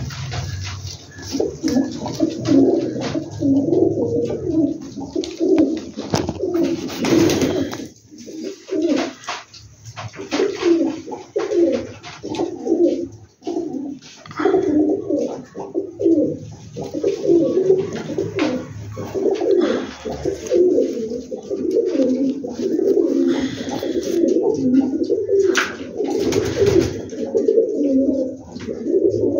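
A flock of domestic pigeons cooing continuously, many throaty calls overlapping, with a few brief scuffing noises.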